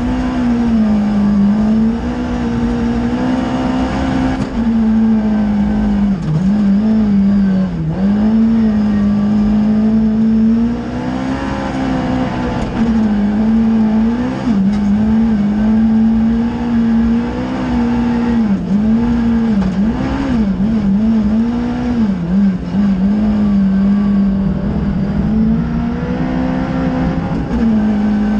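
Ford Fiesta R2 rally car's engine heard from inside the cabin at racing speed, held at high revs and dropping sharply several times before climbing again with gearshifts and lifts, over a steady low rumble of tyres on the snowy road.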